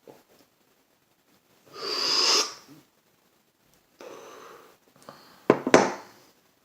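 A person's breath sounds: a long, forceful rush of air, then a quieter breath and two sharp bursts near the end.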